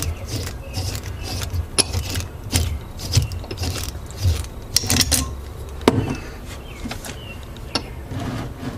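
Hand rivnut installation tool being unscrewed from a freshly set rivnut in thin sheet metal: irregular metallic clicks and clinks as the steel tool turns off the threads and is handled, with the sharpest clicks about five to six seconds in.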